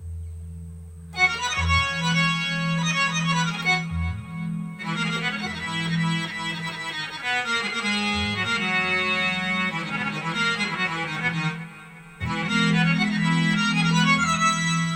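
Korg Kross2 synthesizer playing a melody on an accordion-like reed tone over a repeating low beat. The melody comes in about a second in and drops out briefly near the end.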